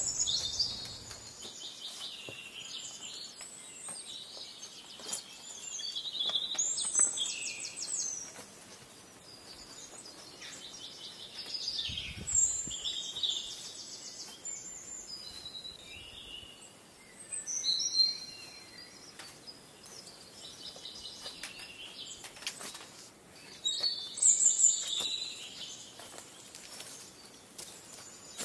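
A songbird singing short, patterned, trilling phrases about every five or six seconds, with faint footsteps on the forest trail between them.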